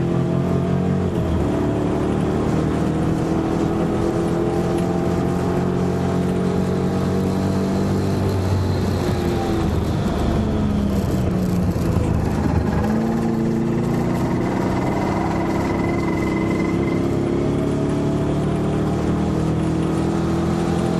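TVR Sagaris's LS7 7.0-litre V8 engine running hard on track, its pitch falling as the car slows about halfway through, then climbing again as it accelerates.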